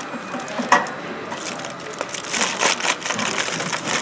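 Aluminium foil flexible duct crinkling and crackling as it is handled and pressed onto a blower's outlet, with a few sharp clicks.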